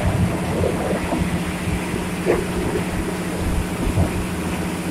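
Heavy diesel engine of earthmoving machinery running steadily, with a few short knocks on top of the drone.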